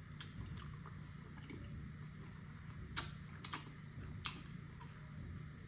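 A few faint wet, sticky clicks and squishes from cleaning up during the meal, the sharpest about three seconds in, over a low steady hum.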